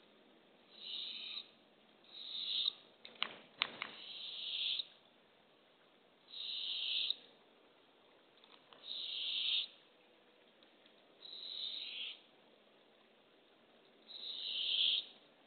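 Barred owl owlet giving its raspy, hissing begging call: a hiss that swells and breaks off, repeated about every two seconds, a sign of a hungry nestling begging for food. A few sharp clicks come about three to four seconds in.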